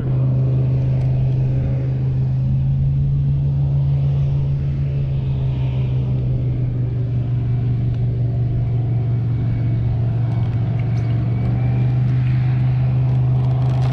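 Steady low hum of the Old Town AutoPilot kayak's built-in electric trolling motor running, heard through the kayak-mounted camera, unchanging throughout.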